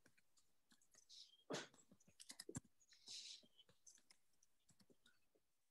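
Near silence on a video call, broken by a few faint clicks and short soft hisses, the loudest about a second and a half in.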